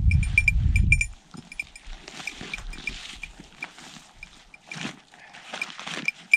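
English setter eating food it has just been given, with soft intermittent eating noises. A light, high ticking like a small bell repeats a few times a second, and a low rumble fills the first second.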